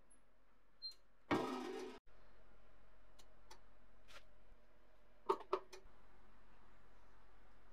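A short high beep from the heat press's digital temperature controller, then a burst of noise lasting about half a second. Later come two light clicks close together over a faint steady hum.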